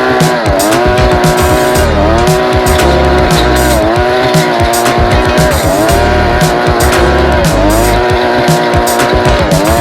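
Small four-stroke brush-cutter engine running hard with a tiller head fitted, its pitch dipping and recovering about every two seconds as it comes under load, with backing music.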